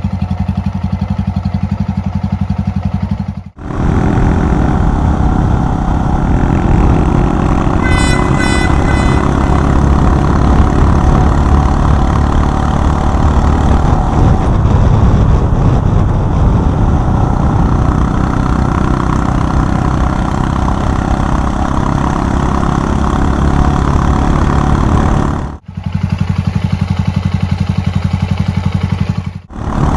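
Honda Monkey 125's single-cylinder engine idling steadily, then running under way with wind noise while the bike is ridden. Near the end it cuts abruptly back to a steady idle.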